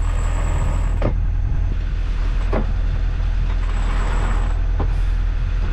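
Sailboat headsail being unfurled: a few separate creaks and clicks from the furling gear and lines, over a steady low rumble.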